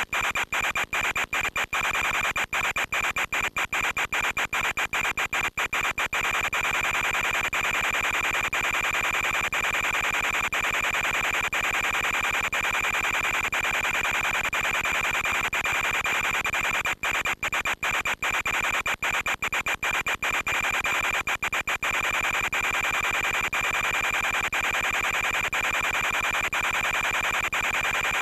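Steady radio hiss from an FPV video downlink, with a thin high whine running through it. It is broken by many brief dropouts during the first six seconds and again from about 17 to 22 seconds in, where the signal cuts out for an instant.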